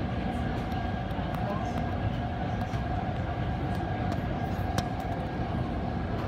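Cabin noise of a Kaohsiung MRT Red Line metro train running at speed: a steady rolling rumble of wheels on rail with a steady hum over it, and one sharp click near the end.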